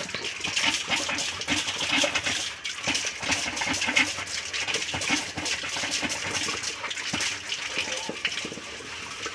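A metal cooking pot being scrubbed by hand in water: continual scraping and scrubbing with clinks of metal and splashing water.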